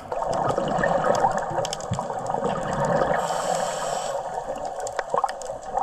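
Bubbling of exhaled air from a scuba regulator, heard underwater, a steady churning gush. A brief higher hiss comes about three seconds in.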